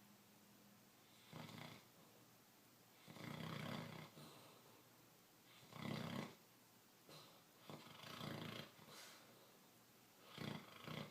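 A bloodhound snoring, a snore every two seconds or so, uneven in length, with two quick ones close together near the end.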